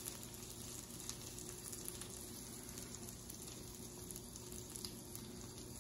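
Faint, steady sizzle of butter pan sauce in a hot cast iron skillet around a filet mignon, with a few small pops and a low steady hum underneath.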